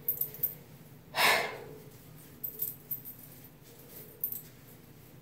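Faint rustling and small scattered clicks of hands working a synthetic wig's hair up into a high ponytail, with one louder, longer rush of noise about a second in.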